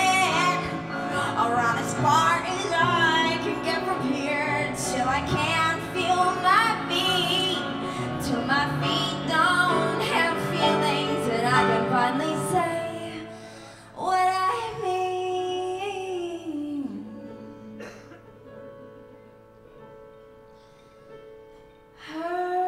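A woman singing into a microphone over piano and guitar accompaniment. About halfway through the music thins to a few held notes that fade away, and her voice comes back in near the end.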